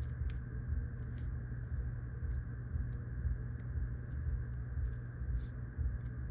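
Steady low background hum with faint, irregular light ticks.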